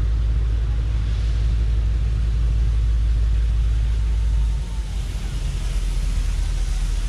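Low, steady rumble of a train locomotive working uphill and approaching from a distance; the deepest part of the rumble eases about four and a half seconds in.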